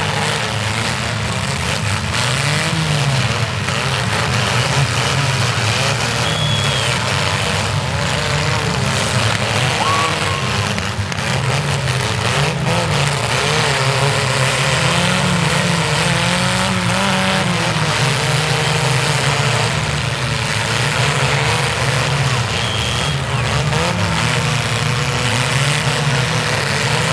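Several compact cars' engines running hard together in a mini demolition derby, their pitch repeatedly rising and falling as the drivers rev and back off.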